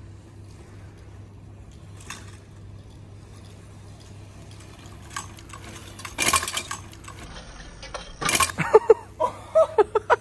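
Heavy rental city bike clattering against a metal skatepark rail, a metallic clank about six seconds in and a louder clattering hit about eight and a half seconds in. A quick string of short sharp sounds follows near the end.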